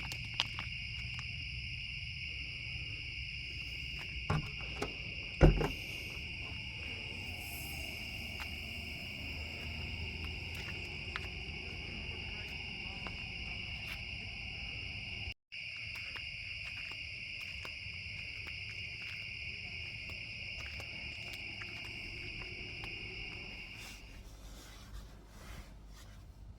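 Night insects trilling in a steady, unbroken high chorus, with two sharp knocks about four and five and a half seconds in; the trilling breaks off a couple of seconds before the end.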